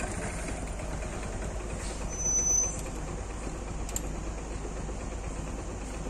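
Steady low rumble of a running engine, with a brief thin high tone about two seconds in and a single sharp click near four seconds.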